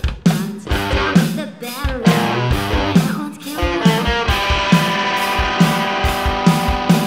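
Live rock band playing: drum kit keeping a steady beat under electric bass and guitar. About four seconds in, a chord is held and rings on over the drums.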